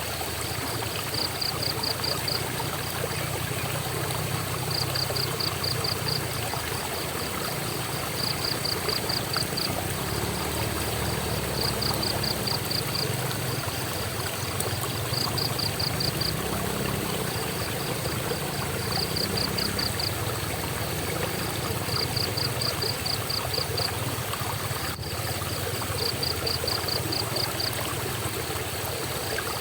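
Steady rush of flowing water. Over it, a high chirping trill of about ten quick notes repeats every three to four seconds.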